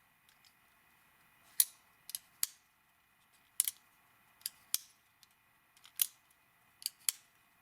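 Schrade Divergent folding knife with a ball-bearing pivot being flicked open and snapped shut repeatedly, the blade and pivot lock clicking. There are about nine sharp clicks, some in quick pairs, spaced irregularly.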